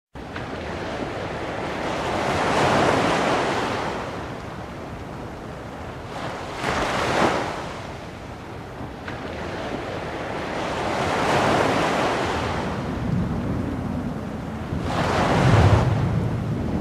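Ocean surf: waves swelling and washing out four times, about four seconds apart. A low rumble comes in near the end.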